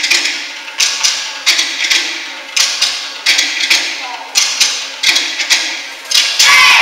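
Polynesian drumming: sharp wooden strikes in a fast, repeating pattern, ending in a loud sustained roll near the end as the piece finishes.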